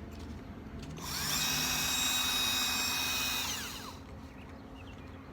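Battery-powered drill drilling out a rivet on a die-cast model car: the motor spins up about a second in, runs at a steady whine for a couple of seconds, then winds down.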